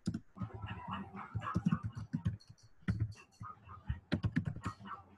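Typing on a computer keyboard: short runs of quick key clicks with brief pauses between them.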